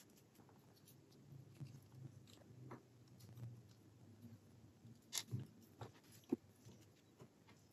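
Faint handling of small plastic and metal parts as the instrument-cluster clock is fitted back together by hand, with a few light clicks and taps about five to six and a half seconds in.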